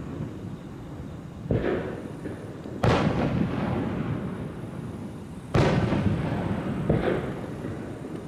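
Fireworks shells bursting in the sky: four sharp booms a second or more apart, each trailing off slowly. The second and third are the loudest.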